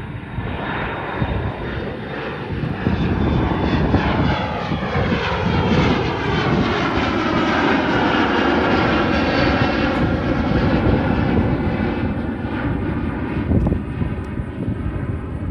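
Jet airliner passing low overhead: the engine noise swells to a peak about halfway through and then eases off, with a sweeping, whooshing change in tone as it goes by.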